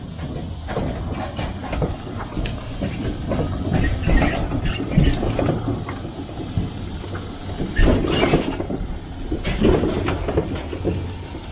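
Pickup truck towing an enclosed tandem-axle cargo trailer: the engine runs low and steady while the trailer body rattles and clanks as it rolls, with several sharp knocks, loudest about eight and ten seconds in.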